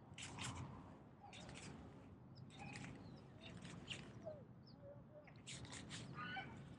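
Faint birds chirping, with a short warbling phrase near the end. Short scratchy strokes repeat about once a second.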